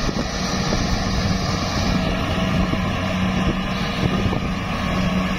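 Compact rice combine harvester's engine running steadily under load as it cuts and threshes lodged, flattened rice, a constant hum under the broad whirr of the cutting and threshing machinery.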